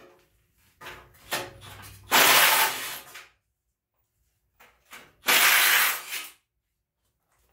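Two hissing blasts of about a second each, a spray or jet of air used to clean transfer case parts, with a few light clicks and knocks of metal parts before and between them.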